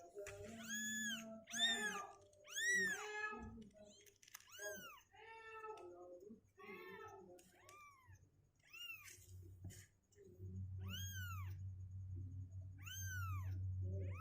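Two-week-old kittens mewing over and over in short, high-pitched calls that rise and fall, several at once near the start. A low steady hum sets in during the second half.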